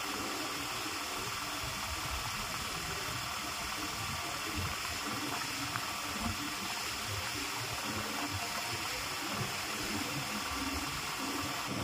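Fishing reel being wound, a mechanical ratcheting over a steady hiss, with irregular low knocks.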